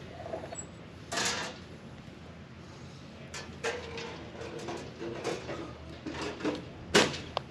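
Sawn maple boards being handled: wood sliding and scraping with scattered knocks and squeaks, and one sharp knock near the end.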